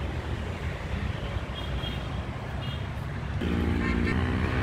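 Outdoor background noise: a steady low rumble. About three and a half seconds in, a steady pitched hum joins it and holds.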